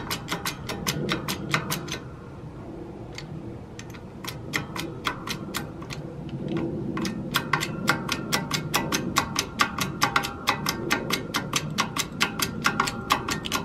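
Rapid, even clicking at about five clicks a second, which thins out about two seconds in and picks up again about four seconds in.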